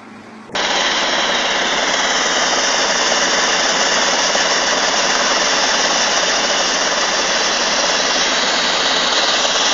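Hitachi excavator's diesel engine running loud and steady while its arm works in deep snow, with a constant low hum under the engine noise. It starts abruptly about half a second in.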